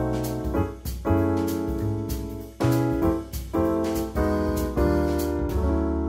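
Background music: piano or electric keyboard playing chords, fading out near the end.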